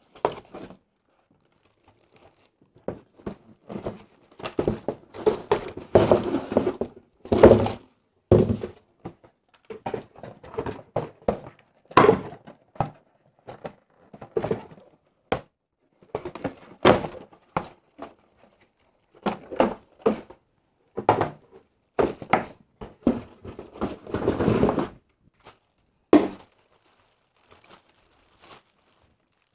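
Cardboard box and packing being handled while unboxing an RC tank: irregular knocks and thunks mixed with crinkling plastic.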